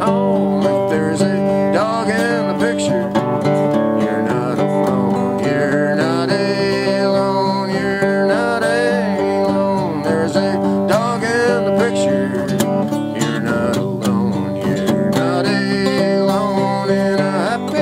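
Gibson acoustic guitar strummed in an instrumental break of a folk song, with a melody of gliding, bent notes over the chords.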